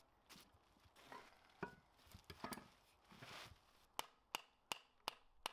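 Hammer tapping a shaft out of a cast iron bandsaw wheel's hub, using a wooden dowel as a drift. A few seconds of handling noise and soft knocks, then a run of five sharp taps, about three a second.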